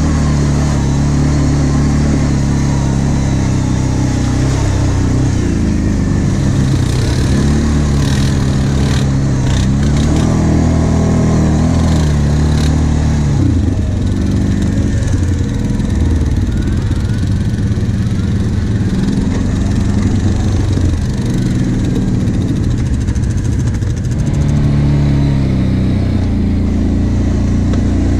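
Kawasaki KVF 750 Brute Force quad's V-twin engine running while ridden over a dirt trail, its engine speed rising and falling with the throttle. A short run of clicks and knocks comes about a third of the way in.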